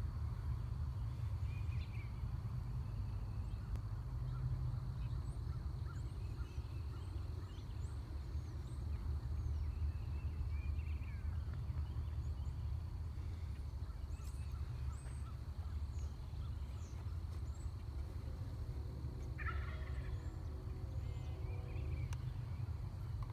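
Outdoor farm ambience: a steady low rumble with scattered short bird chirps, and one louder call lasting a couple of seconds about 19 seconds in.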